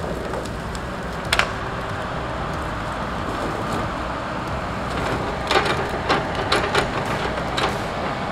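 Tigercat log loader's diesel engine running steadily while it handles logs. There is one sharp knock about a second in, and a run of several knocks and clunks of logs in the grapple in the second half.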